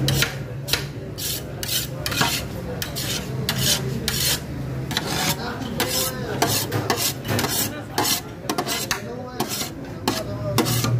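A ladle scraping and stirring against the inside of a large metal cooking pot of beef pulao, in repeated rasping strokes about two a second.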